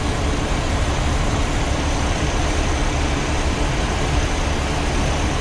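2003 Chevy Cavalier's four-cylinder engine idling steadily with a low hum.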